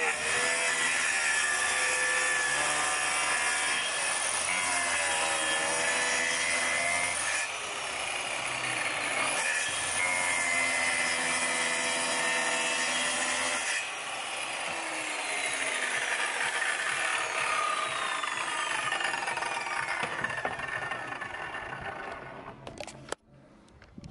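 Workzone plunge-cut track saw running along its guide rail, cutting through plywood at full depth, with a motor whine over the cutting noise. After about fourteen seconds the pitch slowly falls, and the saw stops near the end.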